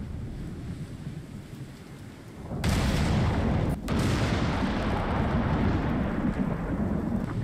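Thunder: a low rumble that dies down, then a sudden sharp crack about two and a half seconds in, followed by a long, heavy rumble.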